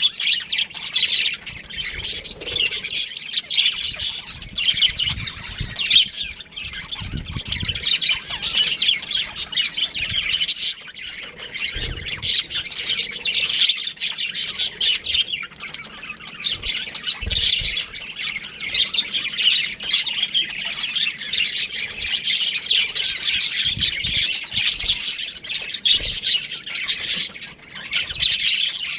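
A flock of budgerigars chattering and squawking without pause, many birds calling over one another.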